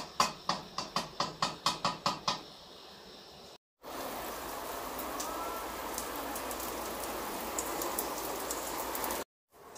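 A metal slotted ladle knocking against an aluminium cooking pot, about four quick taps a second for two seconds or so. Then, after a break, steady rain falling on a wet concrete floor, with scattered ticks of single drops.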